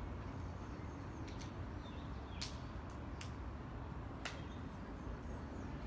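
Outdoor background: a steady low rumble, with three short sharp clicks in the middle.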